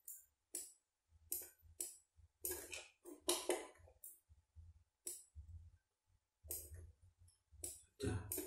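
Irregular short clicks and small handling sounds from a computer mouse and desk, over a faint low hum.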